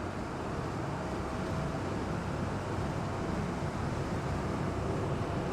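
Amphibious Duck tour vehicle running steadily afloat on the river, its engine giving an even low rumble mixed with wind and water noise.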